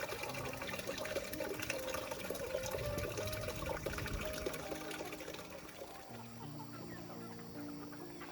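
Chickens clucking, busiest in the first five seconds, over soft background music of held notes that change about six seconds in.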